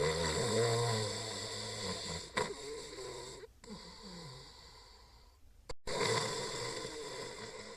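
Snoring: a loud snore at the start, softer breathing through the middle, and another snore after a brief break about six seconds in.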